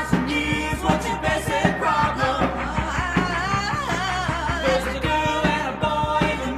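Rock song with drums and a wavering lead line, plausibly a voice, over the band.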